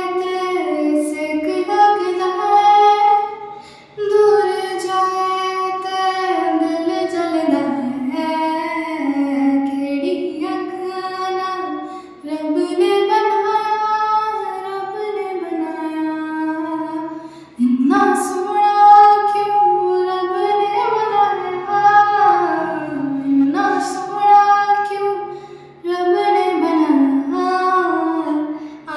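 A high voice singing a slow, sliding melody, in long phrases with short breaks between them.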